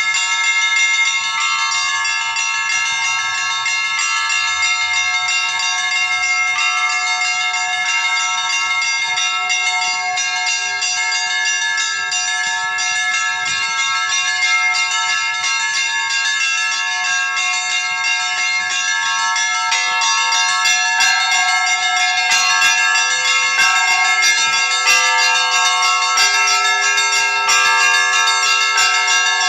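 Russian Orthodox church bells being rung continuously, many overlapping bell tones ringing on, growing a little louder and fuller from about twenty seconds in.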